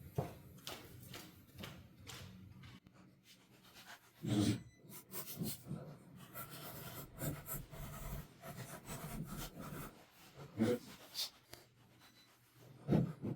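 Paint being scratched off a copper ground wire: irregular short scratches and clicks, with a few duller bumps of handling.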